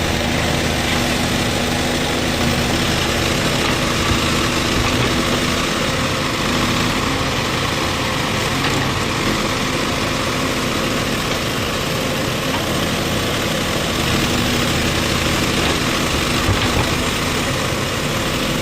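Backhoe loader's diesel engine running steadily at a low, even speed, with no rise or fall in revs.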